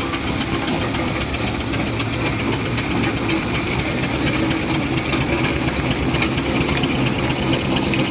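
A heavy engine running steadily at a low, even pace with a rapid regular beat.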